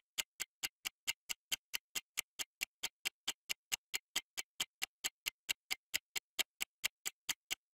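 Clock-style ticking sound effect of a quiz countdown timer, short sharp ticks evenly spaced at about four to five a second.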